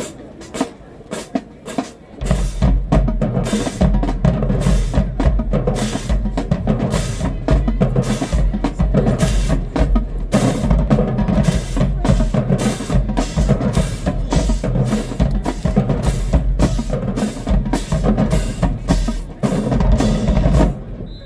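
Marching band drumline playing a loud drum cadence on snare and bass drums. Lighter stick hits open it, the bass drums come in about two seconds in, and it stops abruptly near the end.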